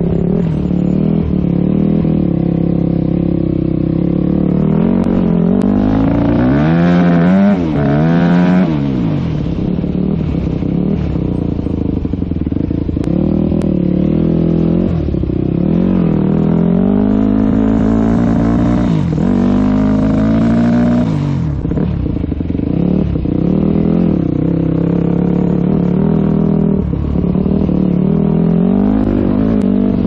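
2001 Yamaha WR250F's single-cylinder four-stroke engine running and revving up and down, its pitch rising and falling repeatedly, with the sharpest sweeps about a quarter of the way in.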